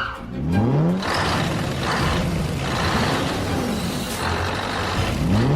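Car engines revving, their pitch climbing near the start and rising and falling again midway, over a steady rushing noise.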